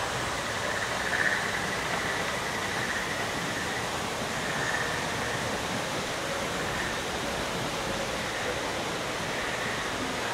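Steady rushing noise of water falling in a waterfall, even and unbroken.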